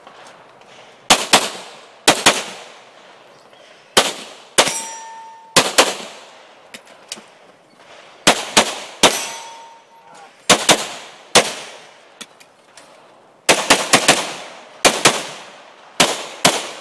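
A 9mm Glock 34 pistol fired in rapid succession through a practical-shooting stage, about twenty shots, mostly in quick pairs, with short pauses between strings. About four and a half seconds in, one shot is followed by a short metallic ring.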